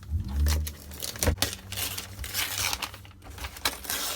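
Paper being torn and crinkled as a wrapped gift is opened by hand, in repeated rustling swells with small sharp clicks of handling. A low thump of the package being handled comes at the very start.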